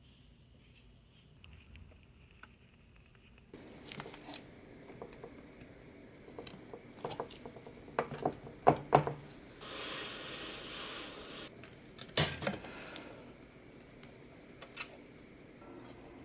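Small metal parts and tools clinking and clattering as an old mini lathe is worked on by hand, with a steady hiss lasting about two seconds midway.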